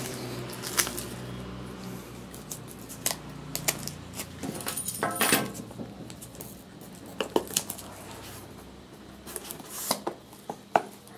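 Hands opening a smartphone's cardboard box: scattered taps and clicks, with a short scraping rustle about five seconds in.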